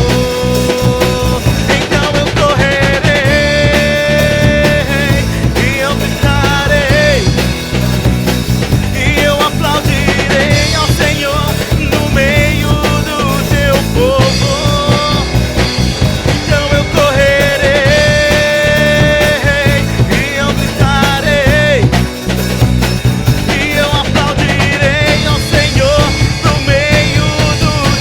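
Upbeat gospel song played on a drum kit and acoustic guitar, with a man singing over it.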